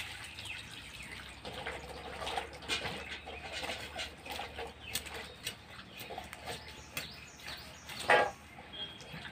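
Cut drumsticks and potatoes being washed by hand in a steel bowl: water splashing and pieces knocking against the metal, with irregular scraping as small fish are scaled with a knife. One louder knock comes about eight seconds in.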